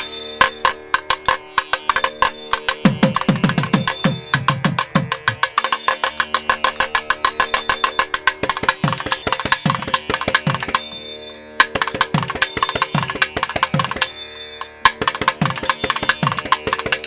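Background Indian instrumental music: a fast hand-drum passage in tabla style, with low strokes that bend in pitch, over a steady drone.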